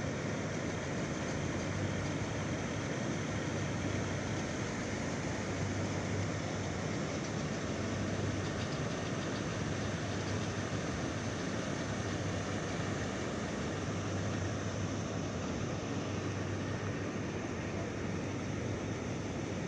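Heavy machinery running steadily: a low engine drone that swells and eases slightly, under a constant hiss.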